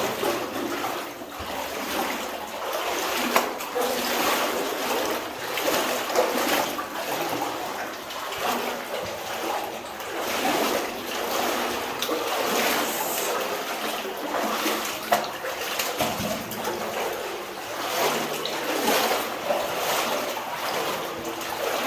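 Wading through deep water in a flooded mine tunnel: irregular splashing and sloshing from legs pushing through the water, continuing throughout.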